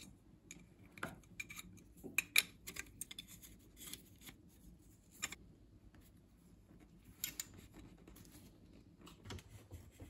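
Light, scattered clicks and small scrapes of a brass compression nut and fitting being handled and fitted onto a copper pipe.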